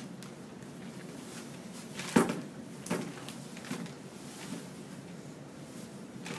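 Vegetables being rummaged out of a plastic bag in a plastic tub: a sharp knock about two seconds in, then a few lighter knocks and rustles.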